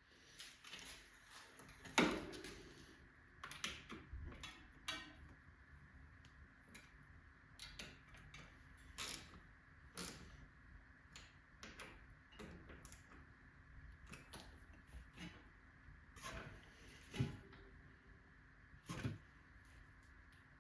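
Scattered clicks, taps and clunks of hand tools and bike parts being handled during a mountain bike fork install, with a faint steady hum underneath. The loudest knocks come about two seconds in and twice near the end.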